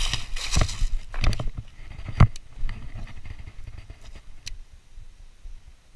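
Rustling and scraping of a person shifting over dry leaves and loose river stones, with a sharp knock about two seconds in and a few lighter clicks, then only a low rumble on the microphone.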